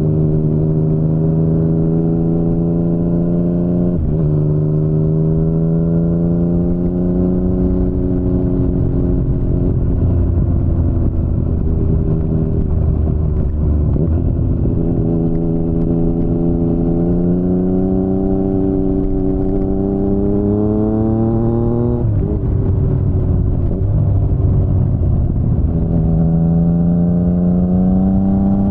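Yamaha MT-09's three-cylinder engine through an Akrapovic full-system exhaust, pulling up through the gears. The pitch climbs steadily in each gear and drops sharply at each upshift, about 4, 14 and 22 seconds in and again at the very end, over a low rumble of wind and road noise.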